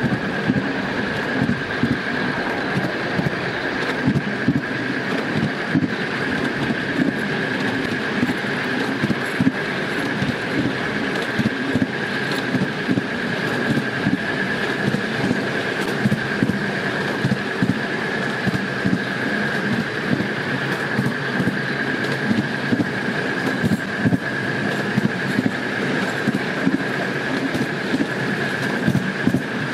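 Miniature railway locomotive running along a raised track, with a steady high whine and wheels clicking irregularly over the rail joints.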